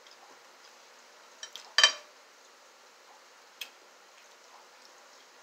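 Tableware clinking: a few light clicks, then one loud, ringing clink of glass or a plate a little under two seconds in, and another light click about halfway through.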